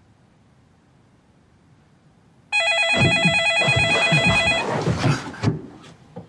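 Telephone ringing: an electronic, warbling ring starts about two and a half seconds in and lasts about two seconds, with some lower, irregular handling noise under it and just after.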